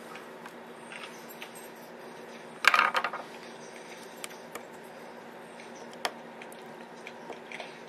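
Small clicks and taps of a screwdriver and tablet parts being handled on a wooden tabletop, with a short rattling clatter about three seconds in and a single sharp click about six seconds in, over a faint steady hum.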